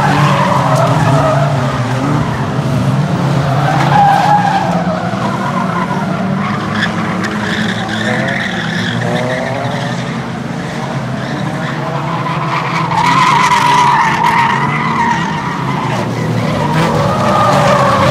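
A pack of 1600cc production rod race cars racing, their engines revving up and down as they lap. The sound swells louder about four seconds in and again around thirteen seconds in.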